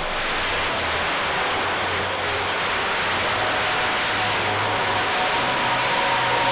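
Racing quadcopter's motors and propellers heard through its onboard camera: a steady rushing hiss with a faint motor whine that comes in about two-thirds of the way through.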